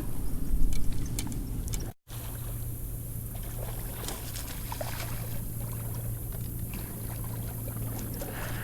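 Water lapping and trickling around a kayak, over a steady low hum, with a few light knocks; the sound drops out for an instant about two seconds in.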